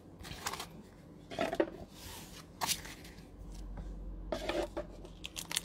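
Pokémon trading cards and their plastic packaging being handled by hand: scattered soft clicks and rubs, with a foil booster pack crinkling near the end.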